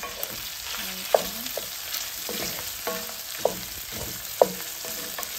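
Smoked sausage slices, sun-dried tomatoes, onion and garlic sizzling in oil in a stainless steel sauté pan, stirred with a wooden spoon. The spoon knocks against the pan about five times, each knock ringing briefly over the steady sizzle.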